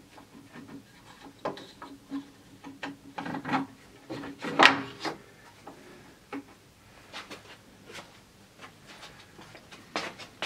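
Wooden trunnion parts and a wooden sub-table being handled and seated on a bandsaw's wooden trunnion cradle: wood knocking and sliding against wood. A louder knock comes a little under five seconds in.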